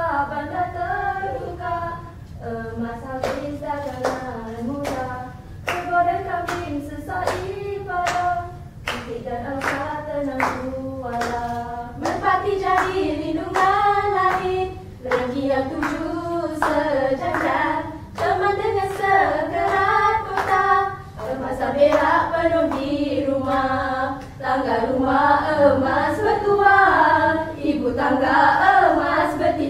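A group of women singing together, with sharp hand claps through the song.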